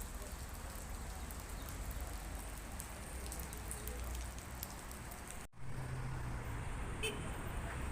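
Steady background noise with a low rumble and scattered faint crackles, then an abrupt cut about five and a half seconds in to a similar noise bed with a steady low hum.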